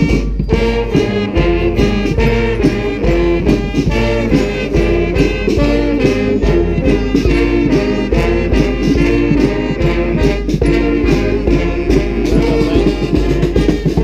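Live brass street band playing a rock tune: sousaphone bass line, trumpets, trombone and saxophones over a steady hand-drum beat.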